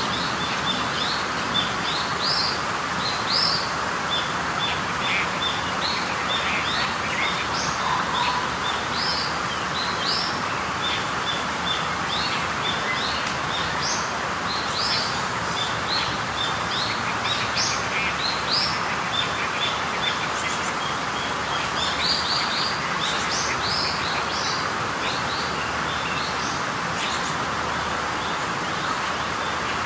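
Birds chirping in many short, quick calls throughout, over a steady hiss.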